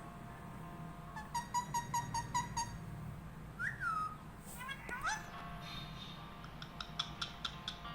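Pet parrot calling: a rapid run of short, clipped chirps, then a falling squawk and a rising call, then another quick run of chirps near the end.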